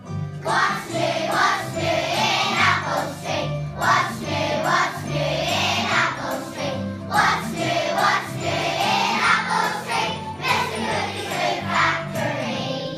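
A choir, children by the setting, singing a song with instrumental accompaniment that carries a moving bass line.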